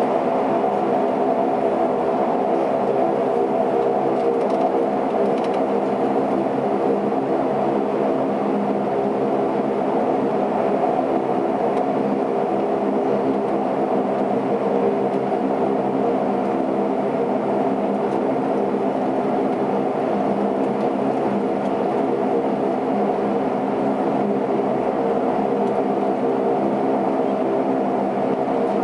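Saab 340B's twin General Electric CT7 turboprop engines and propellers running steadily, heard inside the passenger cabin as an even drone with several steady propeller tones. There is no change in power.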